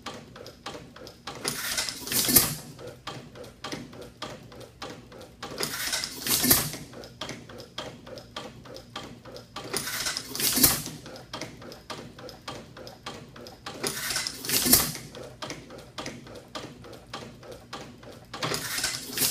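Circa-1910 Kansas City Lightning 6 HP engine, two pistons in one cylinder, running slowly. It fires with a loud bang about every four seconds, five times in all, each bang swelling up over about a second. Between the firings there is a steady fast clicking.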